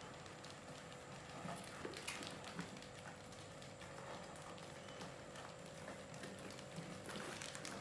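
Faint scratching and light tapping of several mice scurrying over a plastic bucket trap and its wooden ramps, with a few sharper clicks about two seconds in and again near the end, over a faint steady hum.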